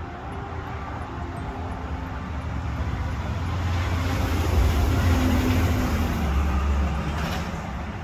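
A road vehicle passing by, its low rumble swelling to a peak about five seconds in and then fading away.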